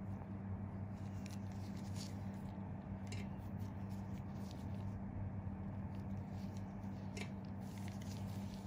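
Steady low hum with faint, scattered rustles and clicks from gloved hands working cotton pads against skin.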